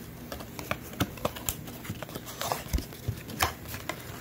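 Trading-card packaging being opened by hand: irregular clicks, crackles and taps of cardboard and wrapper, with a few louder snaps about a second in and again past the three-second mark.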